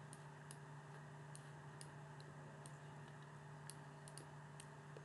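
Faint, irregular clicks of a computer mouse, about two a second, as vertices are selected and dragged, over a steady low hum.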